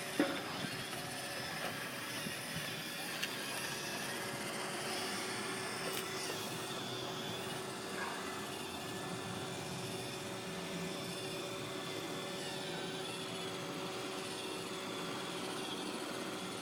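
iRobot Roomba 580 robot vacuum running steadily, its motors giving an even hum with a few held tones and the odd faint click.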